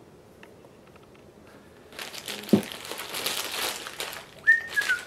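Plastic packaging crinkling as it is handled, from about two seconds in, with one sharp thump partway through. Near the end a high whistled note starts, dipping slightly in pitch.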